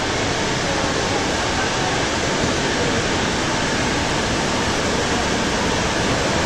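Steady, loud rushing noise with no distinct events or voices standing out.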